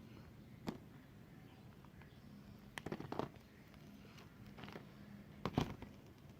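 Knife cutting into a bar of white soap, giving short crisp cracks. One comes about a second in, a quick cluster follows around the middle, and the loudest pair comes near the end.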